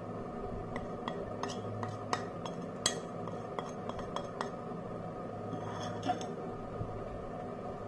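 A spoon clinking against small bowls as spice powders are added to a mixing bowl: a quick run of light clinks, the sharpest about three seconds in, then a brief scraping about six seconds in.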